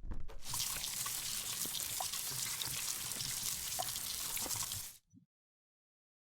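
Water trickling: a steady hiss with small drip-like plinks, cut off suddenly about five seconds in.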